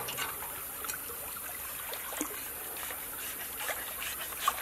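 Shallow stream water trickling steadily, with scattered soft clicks and a sharper tap near the end.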